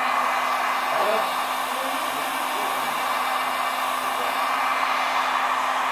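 Handheld heat gun blowing a steady stream of hot air, heating the edge of an iPad 2's cracked touch glass to soften the double-sided tape that holds it.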